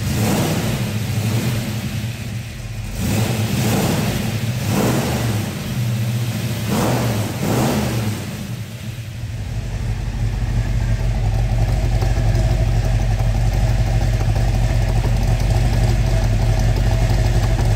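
Ford Falcon XA GT-HO Phase IV's 351 Cleveland V8 blipped several times in quick short revs, then running at a steady, louder low idle from about ten seconds in.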